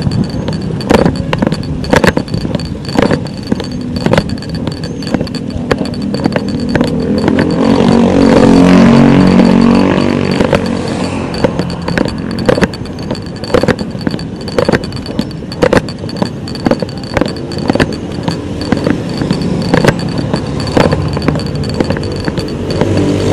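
Highway traffic going past, with an engine passing close and loudest about eight to ten seconds in, its pitch rising then falling. A sharp click repeats about once a second throughout, over a steady high whine.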